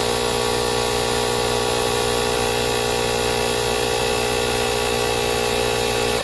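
Fanttik X8 Apex cordless tire inflator's compressor running steadily as it pumps air into a motorcycle tire, then shutting off abruptly at the very end on reaching its set pressure of 36 PSI.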